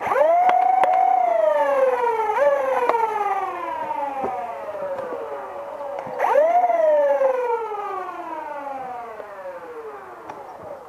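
Flywheel motors of the Dualstage Swordfish, a homemade two-stage foam-dart blaster, revving: a whine that jumps up sharply and then falls slowly as the wheels coast down. It gets a short extra rev about two seconds in and a second full rev about six seconds in.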